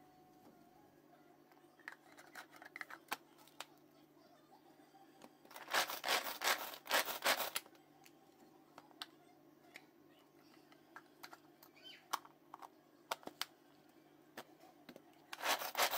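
Plastic handling of a Pigeon pull-cord hand chopper: scattered light clicks and knocks, and a louder stretch of plastic clattering and scraping about six to seven and a half seconds in as the lid is fitted onto the bowl of carrot chunks. Near the end the pull cord is yanked, starting a run of rapid rasping strokes as the blades spin through the carrot.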